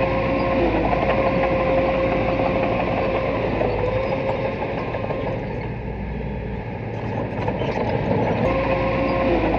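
Small bulldozer's diesel engine running steadily, with a high steady whine over it that fades out about halfway through and comes back near the end, as the engine sound eases a little in between.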